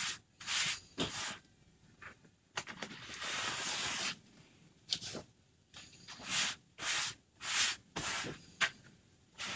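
A series of short rubbing or brushing strokes by hand on a craft transfer, with one longer stroke about three seconds in.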